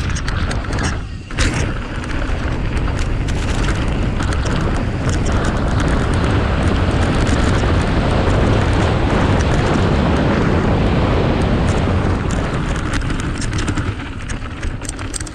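Heavy wind buffeting a helmet-mounted GoPro's microphone as a mountain bike descends a trail at speed. The bike rattles and knocks over bumps, with one sharp clunk about a second and a half in.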